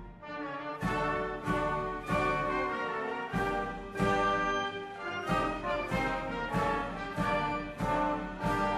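Orchestral background music with brass, its chords entering in a steady pulse.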